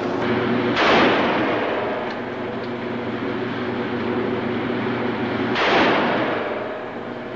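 Two pistol shots about five seconds apart, each a loud crack with a long echo off the walls of an indoor shooting range.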